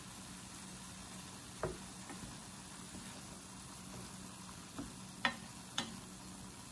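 Ground beef, onion and tomato sizzling in a stainless steel pan as they are stirred with a wooden spoon, the spoon knocking against the pan a few times, loudest a little past five seconds in.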